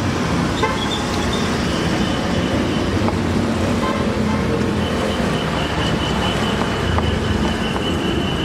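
Steady road traffic noise from passing vehicles, with a thin high tone held for a few seconds in the second half.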